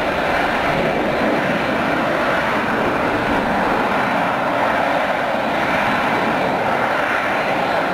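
Jet engines of large four-engine airliners running at taxi power, a steady, unchanging engine noise.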